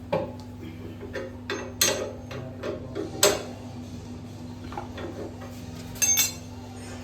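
Metal tools and motorcycle parts clinking and knocking irregularly during hand assembly work, a sharp knock every second or so, with a quick cluster of knocks near the end, over a steady low hum.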